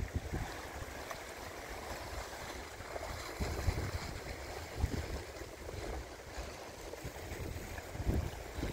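Rough sea surging and washing over a rocky shoreline, a steady rushing wash, with wind gusting on the microphone in uneven low rumbles.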